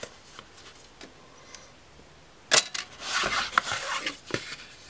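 Cardboard phone-box packaging being handled. It is quiet at first, then a sharp click about halfway through, followed by rustling and several small clicks as the contents are lifted out.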